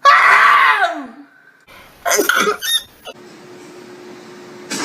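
A person's voiced sneeze: a loud, sudden burst whose pitch falls away over about a second. A second, shorter vocal burst follows about two seconds in.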